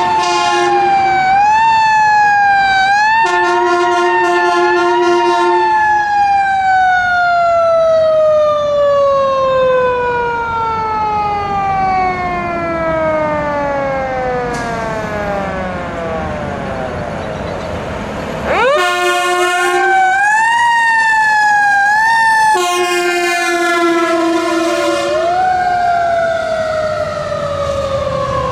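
Fire engine siren wailing up and down, then falling slowly in pitch for about ten seconds before climbing sharply back up about two-thirds of the way through. Steady, deep air horn blasts sound over it several times.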